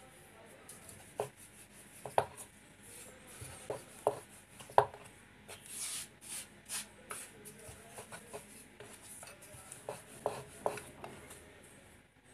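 Hands rubbing flour over a wooden board and patting and moving rounds of rolled dough on it, with scattered soft knocks on the wood.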